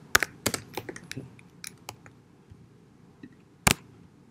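Keystrokes on a computer keyboard: a quick run of taps in the first second or so, a few scattered ones, then a single louder keystroke near the end.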